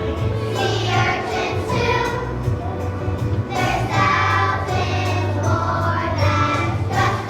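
A choir of young children singing a song together over musical accompaniment with a steady bass line.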